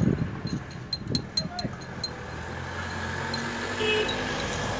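Steel bolts clinking as they are handled and set into the bolt holes of a tractor differential's crown cage: a quick run of light metallic clinks in the first two seconds. A low steady engine hum from a vehicle follows in the second half.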